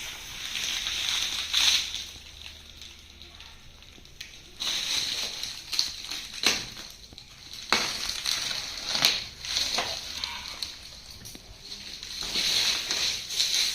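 Cardboard and plastic packaging being handled: rustling and crinkling in several stretches, broken by a few sharp knocks and clicks.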